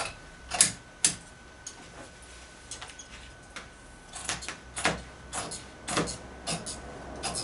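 Large fabric shears snipping through a folded cushion panel: a run of short, irregular snips, trimming off the excess so both halves of the panel are even.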